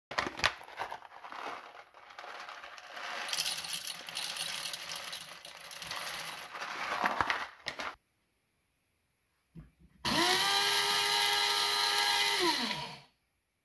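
Coffee beans poured rattling into the metal bowl of a Krups blade coffee grinder for about eight seconds. After a click, the grinder's motor runs for about three seconds with a steady whine, rising as it spins up and falling as it stops; the motor is the loudest sound.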